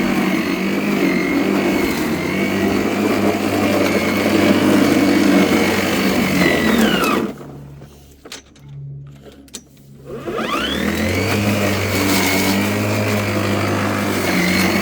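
Worx 40 cm battery lawnmower's electric motor running with a high whine while cutting grass. About seven seconds in the whine falls as the motor winds down to a stop, and about three seconds later it spins back up with a rising whine and runs on.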